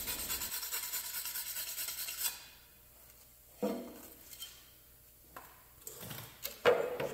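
Stainless steel wire brush scrubbed by hand across an aluminium plate in quick back-and-forth strokes for about two seconds, cleaning off the oxide layer before welding. The brushing then stops, and a few knocks and clinks of metal pieces being handled follow.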